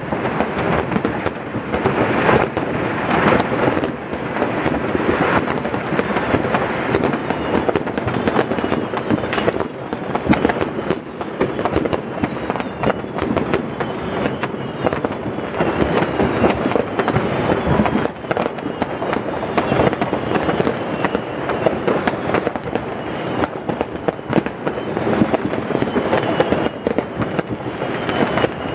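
Massed New Year's Eve fireworks and firecrackers going off without a break: countless overlapping bangs and crackles, with faint rocket whistles in the second half.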